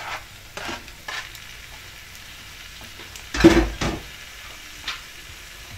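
A spatula scraping chopped tomato off a plastic cutting board into a non-stick frying pan, heard as a few short scrapes. The loudest is a knock a little after three seconds in.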